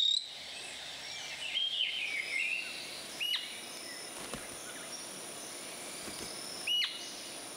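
Rainforest ambience: a steady high insect whine under the forest hiss, a short twittering bird call about two seconds in, then a single sharp bird call note twice, a few seconds apart.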